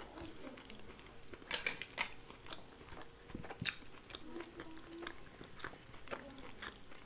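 Quiet chewing of a mouthful of crab close to the microphone, with scattered small crunches and clicks.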